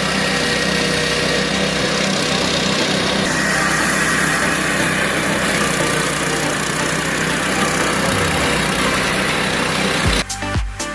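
Matsumoto MWG-170 D grass and brush chopper's engine running steadily. Music with a strong beat cuts in near the end.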